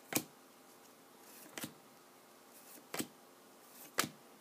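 Glossy trading cards flipped through one at a time, four short sharp snaps about a second apart as each card is slid off the front of the stack to the back.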